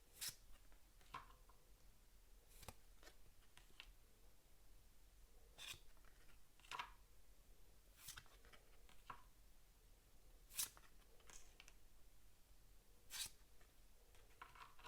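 Near silence broken by faint, scattered clicks and rustles of game cards and paper components being handled.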